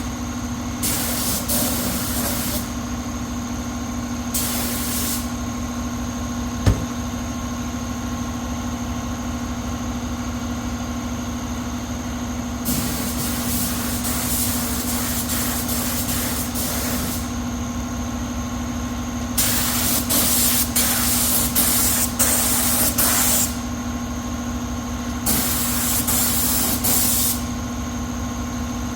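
Compressed air hissing in separate bursts of one to four seconds, five times, over a steady machine hum that keeps one constant pitch.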